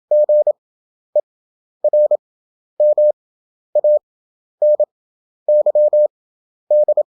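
Morse code practice tone: a single steady mid-pitched tone keyed on and off in dots and dashes, with the characters sent at 27 words per minute and spaced out by long gaps to an effective 11 words per minute, about eight characters in all.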